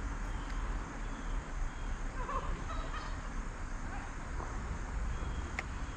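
Outdoor ambience with a steady low rumble, a short bird call about two seconds in, and a single sharp click near the end.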